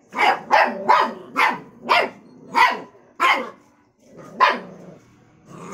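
Puppies barking during a play-fight over a food bowl: a quick run of about seven sharp, high barks, then one more after a short pause.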